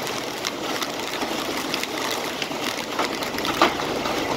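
Torrential wind-driven rain pouring in a steady hiss, with scattered sharp taps and one louder knock about three and a half seconds in.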